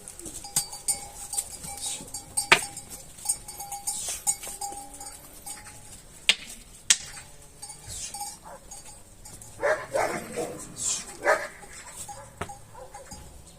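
Sheep bleating twice, about ten seconds in, among scattered sharp clicks and knocks.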